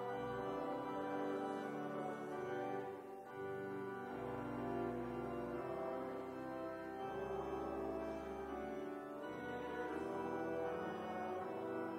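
Slow instrumental music: sustained chords over a low bass note that changes every few seconds.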